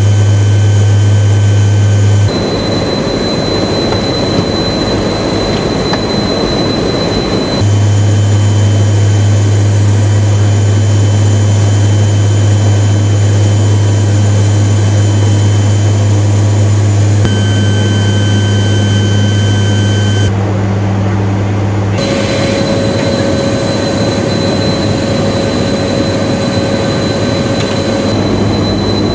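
Loud steady drone of the KC-130J's four turboprop engines and propellers heard inside the cargo hold, with a strong low hum and a thin high whine; the mix changes abruptly a few times.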